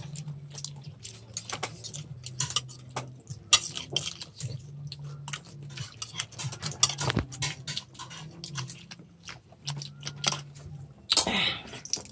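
People eating close to the microphone: chewing, with frequent light clicks and scrapes of spoons against plates. A low hum comes and goes underneath.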